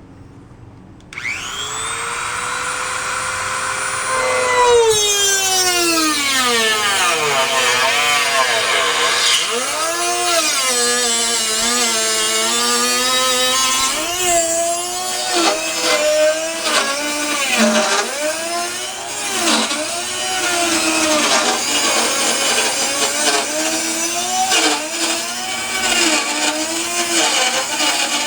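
A high-speed power tool spins up about a second in and cuts the car's body panel for a side marker hole, its whine dipping and rising as it bears down under load.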